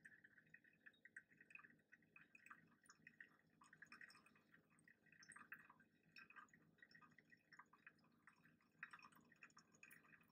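Faint trickle of hot water poured in a thin, slow circular stream onto wet coffee grounds in a Chemex paper filter: the second pour of a pour-over brew.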